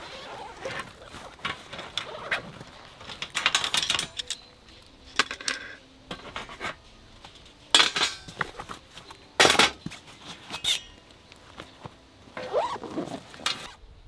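Camping gear being handled: a zipper on a canvas gear bag is opened, then metal table panels and frames clink and knock as they are taken out and set down, with sharp metallic knocks scattered through.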